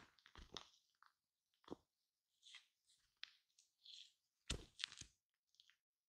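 Shaving cream being worked on a microphone: quiet, irregular crackles and squishes in short clusters, the loudest cluster about four and a half seconds in.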